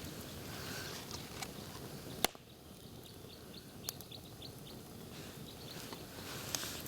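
Campfire crackling, with scattered sharp pops, the loudest about two seconds in. Just after it, a bird gives a quick series of short high chirps for a couple of seconds.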